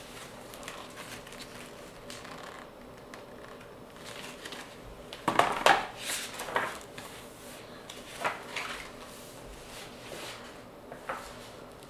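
Handling of a picture book's paper pages: a few short rustles, the loudest about halfway through, and a page being turned near the end.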